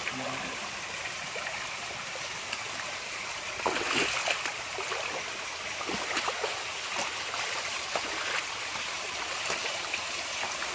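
Shallow stream running over rocks, with scattered splashes and knocks from footsteps wading through the water, a cluster of them about four seconds in.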